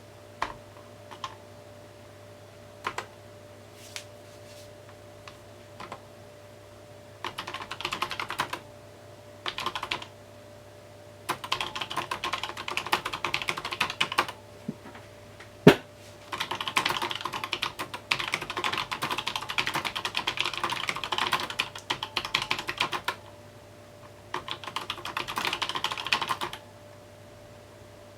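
Mechanical keyboard being typed on in bursts. A few single keystrokes come first, then runs of fast typing broken by pauses, with one louder click about halfway through.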